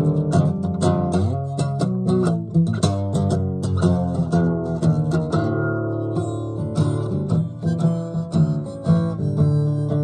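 Acoustic guitar played solo, with no singing: a steady run of strummed and picked chords that ring on between strokes.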